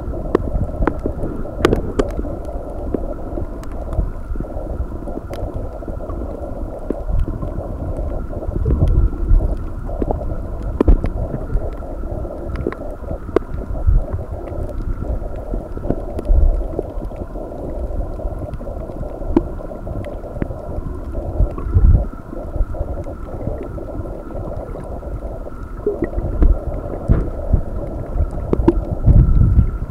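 Muffled underwater sound picked up by a camera held below the surface. A steady low wash of water carries irregular low thumps and scattered faint clicks, over a faint steady hum.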